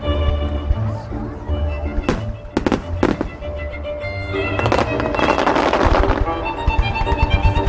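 Music playing under a fireworks display: a few sharp shell bursts about two to three seconds in, then a dense spell of crackling for about a second and a half past the midpoint.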